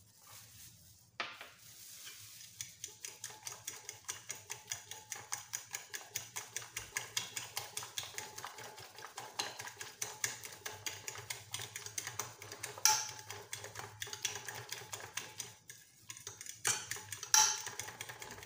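Metal spoon beating eggs in a glass baking dish, clicking against the glass about five times a second, with a brief pause and a few louder knocks near the end.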